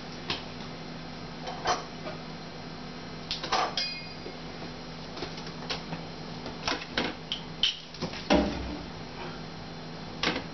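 Irregular light clicks and knocks of kitchen things being handled, as broccoli sprigs are readied for the juicer, with a heavier thump about eight seconds in, over a steady low hum.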